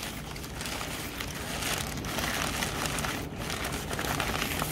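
Crumpled newspaper packing rustling and crinkling as hands grab it and pull it out of a shipping box, with a continuous irregular crackle.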